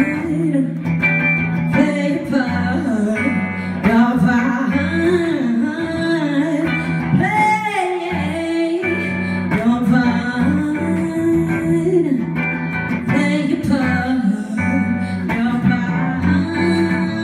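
A woman singing a soul song live, accompanying herself on electric guitar, with a wavering vocal run about halfway through.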